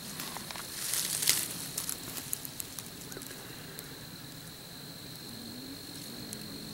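Footsteps crunching through dry leaf litter and twigs on the forest floor, with a burst of crackling and snapping about a second in that tapers off after about three seconds.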